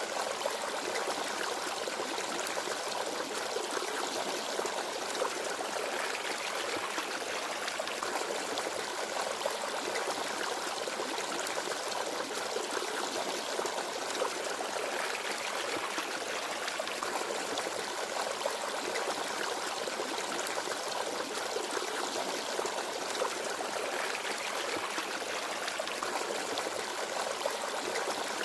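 Forest stream babbling and flowing steadily, with no birdsong.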